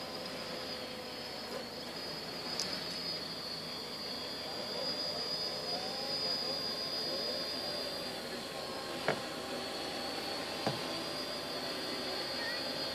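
Quadcopter's electric motors and propellers whining steadily in flight, a high thin tone over a duller hum. Two short sharp clicks come about nine and ten and a half seconds in.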